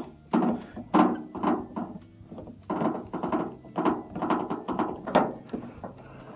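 Phillips screwdriver turning the screw of a hose clamp on the bottom water line of a washer's plastic dispenser housing: a run of short, irregular clicks and creaks as the clamp is tightened, with the sharpest clicks about one second and about five seconds in.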